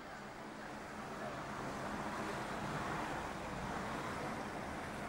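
Street traffic: the noise of a passing vehicle swells to a peak about three seconds in, then slowly eases off.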